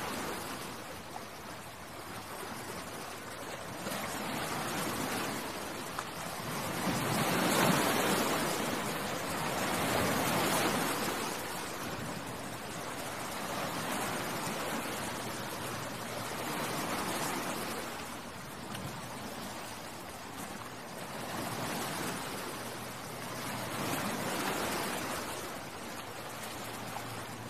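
Sea surf: a steady rush of waves that swells and falls back every few seconds.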